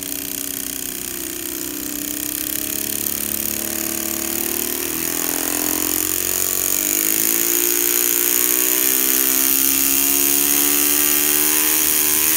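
Electric motor spinning a LEGO Technic four-cylinder piston engine model, speeding up: its whine climbs in pitch and grows steadily louder, with a brief dip in pitch about five seconds in.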